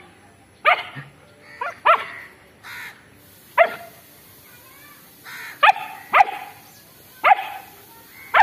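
Long-coated German Shepherd puppy barking: about seven short, sharp, high barks at irregular intervals, a reactive bark at another dog in sight.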